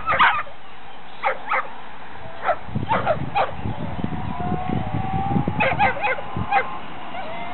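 Sighthounds yelping and barking excitedly in short, sharp calls that come in quick clusters, the densest near the end.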